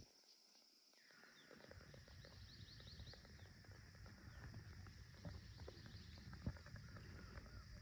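Near silence after a sudden cut, then faint outdoor background: a steady high-pitched hiss with scattered faint chirps, and a run of evenly repeated chirps, about three a second, near the end.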